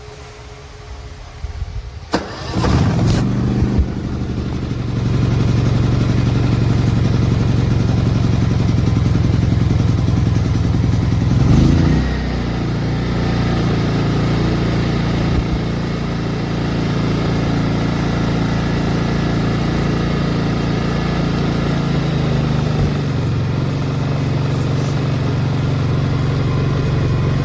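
WEN inverter generator's engine starting about two seconds in, catching over a couple of rough seconds, then running steadily. Its engine note swells briefly just before the middle and then steps down, and drops a little again near the end.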